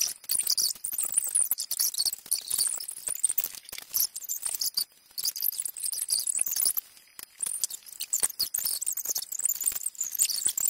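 Small plastic LEGO pieces clicking and clattering as they are handled, pressed together and set down on a hard tabletop: a dense run of light plastic clicks with a couple of short pauses.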